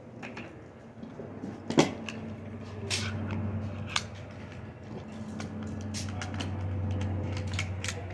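A few sharp clicks and knocks of hand-handled gear, the loudest about two seconds in, over a steady low hum that grows louder in the second half.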